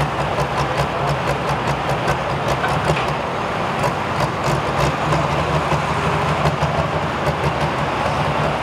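Pro stock pulling tractor's turbocharged diesel engine idling steadily at the end of its pull, with faint scattered ticks.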